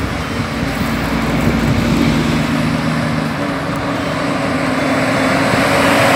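Diesel engine of an International conventional semi-truck pulling a container trailer, running steadily as it approaches and drives past. Its tyre and road noise swell to the loudest point near the end as it goes by.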